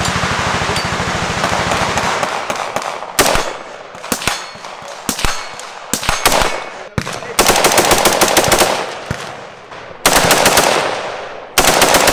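AR-15 rifle fired fast through a Digitrigger electronic trigger. A long quick string of shots runs for about two seconds, then come scattered single shots and pairs, then three more short rapid strings in the last few seconds.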